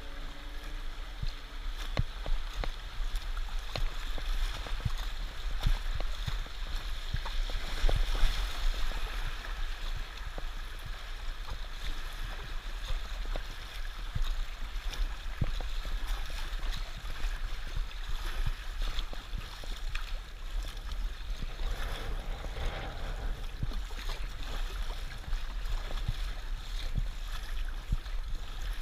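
River water rushing and splashing around an inflatable packraft running over shallow riffles, with scattered splashes from paddle strokes.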